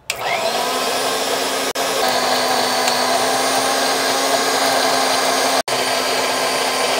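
Electric mixer grinder (mixie) switched on and grinding wet coriander-mint chutney in its steel jar: the motor spins up at once, then runs with a steady whine, cutting out for an instant twice.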